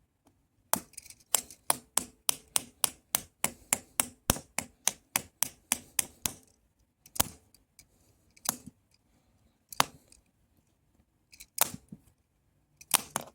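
A screwdriver striking a plastic remote control: a quick run of about twenty sharp taps at roughly four a second, then five single harder knocks spaced more than a second apart.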